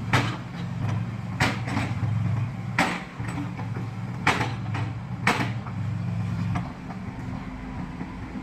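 Excavator's diesel engine running steadily with five sharp metallic clanks, about one every one to one and a half seconds, as the machine works; the engine noise drops off near the end.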